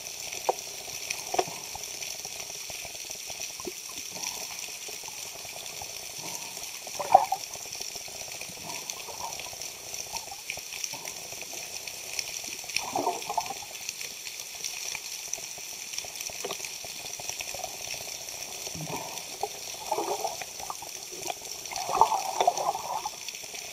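Underwater sound picked up by a camera in its housing: a steady hiss, with a few sharp knocks and several short bursts of bubbling, moving water from a freediver working near the surface. The loudest bursts come near the end.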